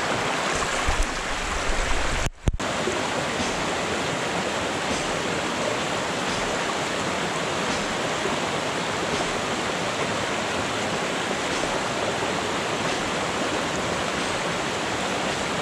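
Fast mountain stream rushing over rocks: a steady noise of rapids, briefly cut off for a moment about two and a half seconds in.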